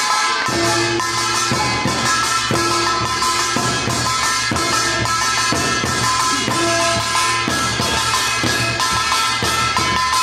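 Korean folk percussion, metal gongs and drums, playing a brisk, steady beat, with the gongs ringing over the drum strokes.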